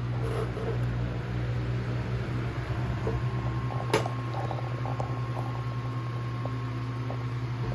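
1954 Emerson 79648-SA 16-inch table fan running on medium speed: a steady motor hum with a faint higher whine, and a single sharp click about four seconds in.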